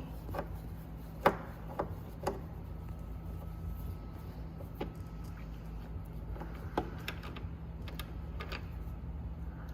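Scattered clicks and knocks from the tub latch retainer and its screws being worked loose and lifted off an iQ426HEPA vacuum. The loudest knock comes about a second in, and a steady low hum runs underneath.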